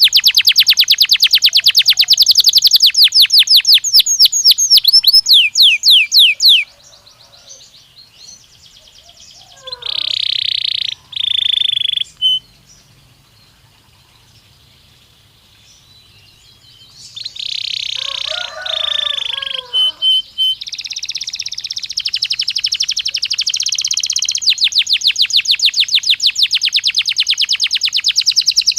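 Domestic canary song in fast trills of rapidly repeated notes. The opening trill slows and drops in pitch before breaking off about seven seconds in. A quieter stretch follows with a few short buzzy rolls, and fast trilling starts up again in the last third.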